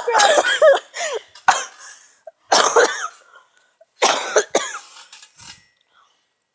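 A person coughing in several separate bursts, about four over the first few seconds.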